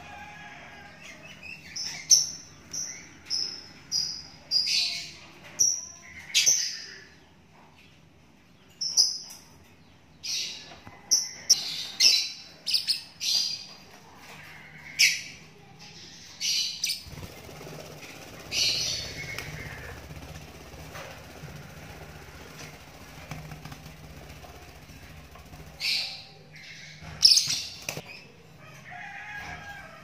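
A 24-day-old lovebird chick giving short, high chirps at irregular intervals. The chirps come thick and loud in the first half and grow sparse later, with a few loud ones again near the end.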